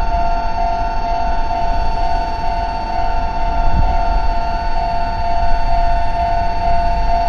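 Japanese railway level-crossing warning bell ringing steadily: the repeating electronic 'kan-kan' two-tone alarm, over a steady low rumble.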